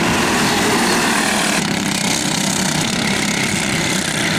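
Racing go-kart engines buzzing steadily as karts run on the track, the sound changing abruptly about a second and a half in.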